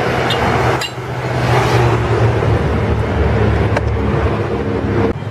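Steady road traffic noise: vehicle engines and tyres running with a low hum, dipping briefly about a second in.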